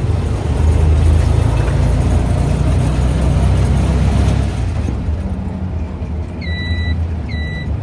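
Riding in a tuk-tuk: a steady low rumble of its motor and road noise, loudest in the first few seconds and easing about five seconds in. Near the end a high electronic beep starts repeating about every 0.7 s.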